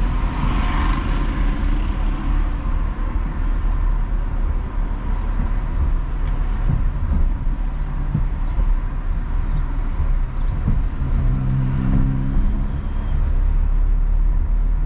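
Car driving slowly through city traffic: steady low engine and road rumble, with a swell of hiss in the first couple of seconds and a steadier engine hum about eleven seconds in.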